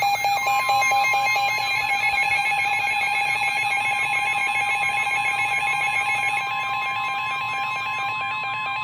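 Emergency Alert System attention signal: a loud, steady two-tone alarm with a warbling tone layered over it. It heralds a National Weather Service severe thunderstorm warning.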